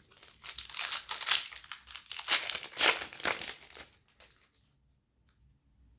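Foil wrapper of a hockey card pack being torn open and crinkled by hand for about four seconds, then it goes quiet.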